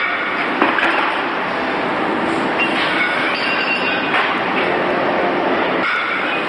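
Steady, loud noise of industrial machinery running, with faint whining tones and an occasional light knock.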